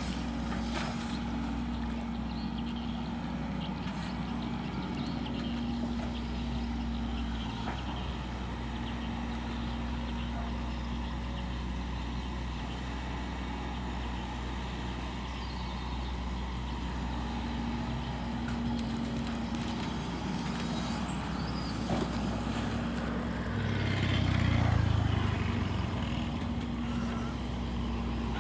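Excavator's diesel engine running steadily with a low drone, with scattered knocks and a swell in engine load about 24 seconds in.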